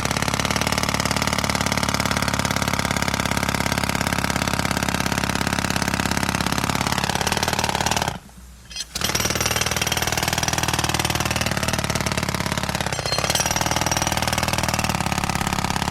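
Pneumatic air hammer hammering in a rapid, continuous stream of blows. It stops for just under a second a little past the middle, then starts again.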